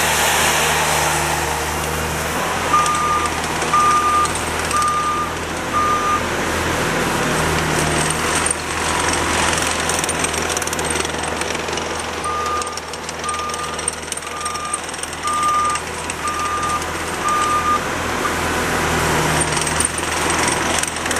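Diesel engine of a Terex PT60 compact track loader running steadily while the machine is driven. Its backup alarm beeps about once a second in two spells, four beeps a few seconds in and six more after the middle, as the loader reverses.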